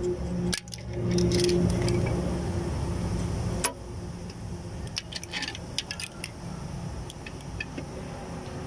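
Hand tools and small steel parts clinking and tapping, light metallic jingles, while working on the valvetrain of a Ford 4.6L V8 cylinder head. A steady hum runs underneath and stops with a sharp click a little under four seconds in.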